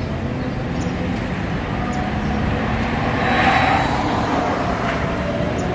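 Road traffic noise: a steady low rumble of vehicles, with one passing by with a rising and falling hiss of tyres about three and a half seconds in.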